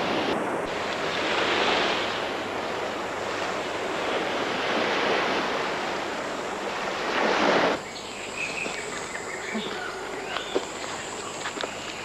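Surf washing in and breaking, swelling and easing in three waves. About eight seconds in it cuts off suddenly to a quieter jungle ambience: a steady high insect drone with scattered light ticks.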